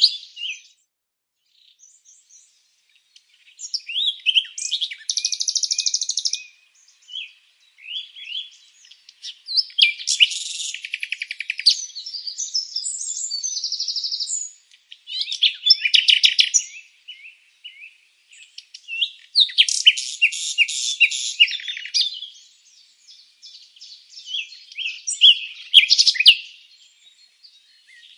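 Birds chirping and singing in high-pitched phrases of a few seconds each, some of them fast trills, with short pauses between bouts.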